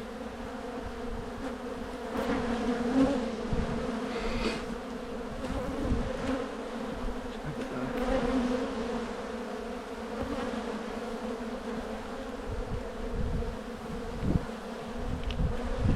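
Honey bees from an opened hive humming steadily, a low drone with a higher overtone above it, as the bees fly around the frames being inspected.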